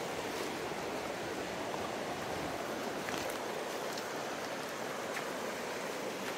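A mountain river rushing steadily over rocks, with a few faint footsteps on the dirt path.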